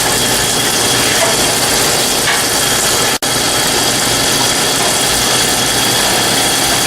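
Fryer oil filtration machine's pump running, with oil flowing out of the filter wand to flush debris from the fryer: a steady rushing noise with a faint high whine, cutting out for an instant about three seconds in.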